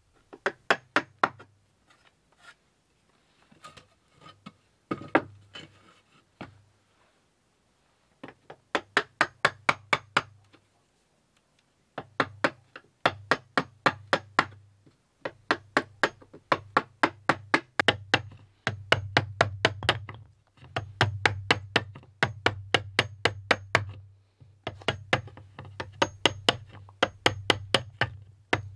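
A hammer tapping a wood chisel into the end of an old chestnut board, in quick runs of about five sharp knocks a second, broken by short pauses. Sparse at first, then almost continuous from about twelve seconds in.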